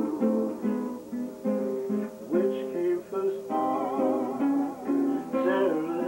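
Lap steel guitar playing a slow melody, several notes sliding up or down in pitch under the steel bar.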